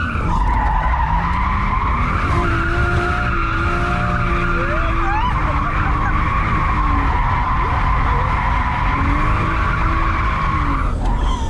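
Car drifting: tyres squealing steadily over the engine running hard. Near the end the squeal breaks off for a moment.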